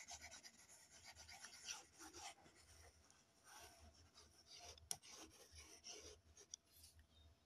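Faint rubbing and scratching on a phone's touchscreen while a drawing is erased, with one light tap a little before five seconds in.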